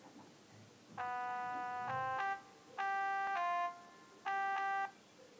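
A short electronic keyboard-like melody in three phrases of held notes, each phrase changing pitch once or twice, the last phrase the shortest, over a faint hiss.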